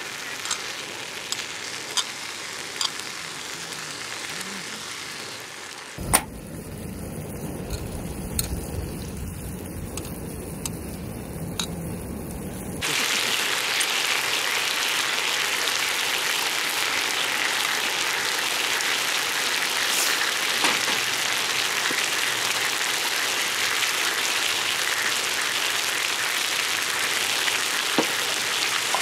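Steady sizzling hiss with scattered pops and crackles, in several cuts; it grows louder about thirteen seconds in.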